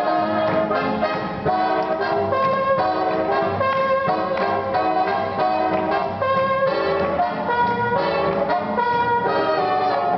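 Live big band playing swing music, with trumpets and trombones leading over a steady beat.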